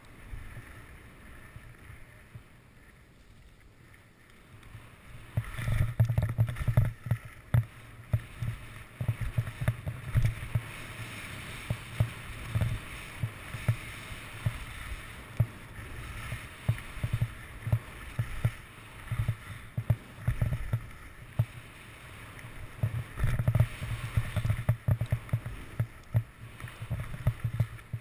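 Skis hissing and scraping over snow while skiing down a forest trail, heard through a body-worn action camera, with frequent low thumps and knocks as the skis ride over bumps. It is quieter for the first few seconds, then busier and louder.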